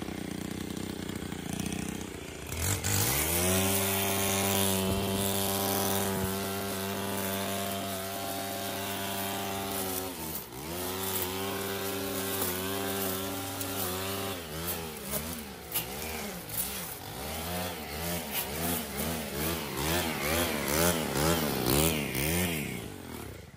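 Stihl FS 90 R string trimmer's 4-MIX engine rising from idle to full throttle about two and a half seconds in. It holds a steady high speed with a brief dip partway through, then revs up and down repeatedly, about once a second, while cutting grass and weeds.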